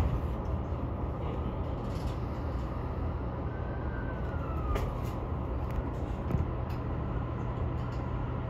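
Steady low rumble of a JR East KiHa 110 series diesel railcar approaching, with a faint whine that dips in pitch midway and a couple of light clicks.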